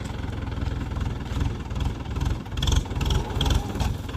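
Tractor diesel engine running through a modified silencer, revved in repeated surges from about a second in, with a few sharp crackles near the top of the revs.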